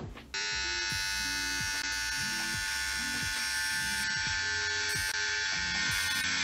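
Electric hair clippers switched on about a third of a second in, then buzzing steadily as they cut hair at the side of the head.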